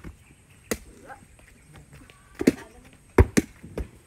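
Basketball dribbled on hard-packed dirt: about five separate bounce thumps at uneven intervals, the loudest a little after three seconds in.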